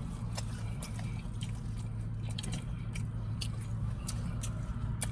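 Chewing and eating noises with scattered sharp clicks of a plastic fork and takeout container, over a steady low hum of an idling car.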